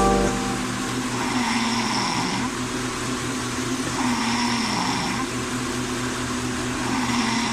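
A person snoring: a rattling, noisy snore that swells with each breath, about every three seconds.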